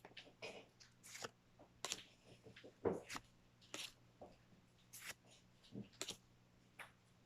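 Pokémon trading cards being slid off the stack one at a time, a faint papery swish or snap about once a second.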